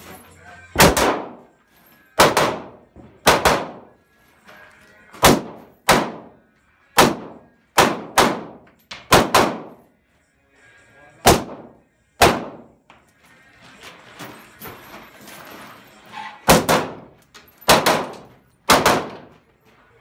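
AK-pattern rifle firing aimed semi-automatic shots, about sixteen in all, often in quick pairs, each with a short echoing tail. There is a pause of about four seconds between shots in the latter half.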